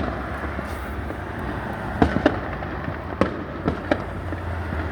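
Fireworks popping in the distance around a neighbourhood: scattered sharp bangs, two close together about two seconds in and several more over the next two seconds, over a steady background hiss.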